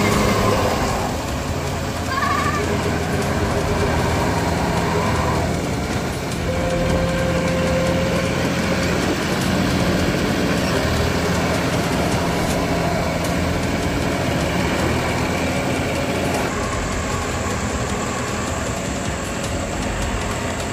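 John Deere 5305 tractor's three-cylinder diesel running steadily under load as its rotavator churns wet, muddy paddy soil. A few short high calls sound in the background, about two seconds in and again around seven seconds.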